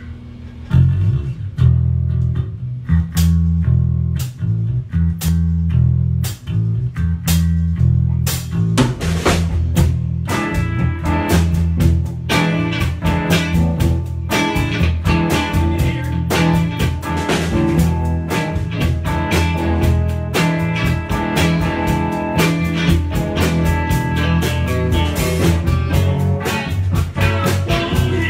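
A small rock band playing an instrumental intro on electric bass, drum kit and electric guitars. The bass line starts alone with sparse drum hits, and the guitars and fuller drumming come in after about ten seconds.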